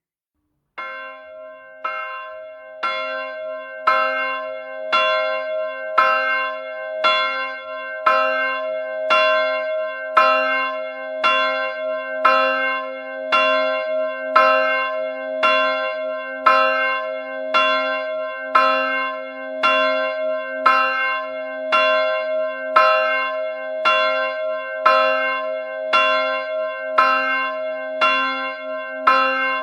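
A church bell struck over and over in a steady rhythm, about two strikes a second, starting about a second in, its ringing hum carrying on between strikes.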